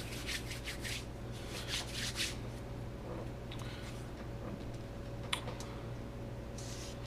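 Hands wiping excess Foam-Tac glue off an EPP foam wing and its plywood brace: a run of quick rubbing strokes in the first two seconds, then lighter handling of the foam with a single click about five seconds in, over a steady low hum.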